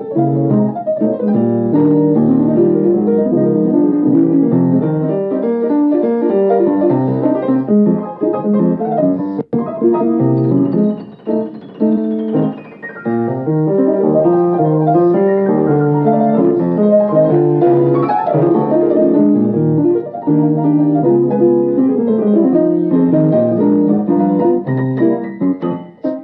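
Jazz piano playing a lively tune, with full chords under quick melodic runs and a few short breaks between phrases.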